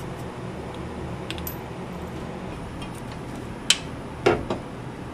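Metal clinking from hand tools and parts being handled against the car's underside: a sharp click, then two short metallic knocks in the last second and a half, over a steady low hum.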